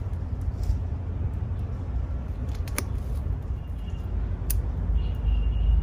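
Bonsai cutters snipping branches off a Monterey cypress: a few short, sharp clicks, spaced a second or two apart, over a steady low rumble.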